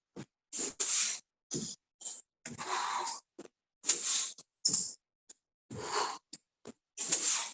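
A person breathing hard in short, forceful exhales while doing burpees, in short breathy bursts about once a second that cut in and out abruptly.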